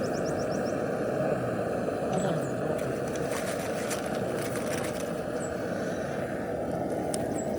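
Steady low rumble of street noise, with a cluster of brief clicks and scrapes from about three to five seconds in.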